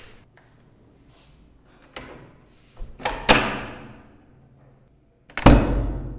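A heavy toilet door banging shut with a short echo off the tiled walls about three seconds in, after a light click. A second, louder heavy thud comes near the end.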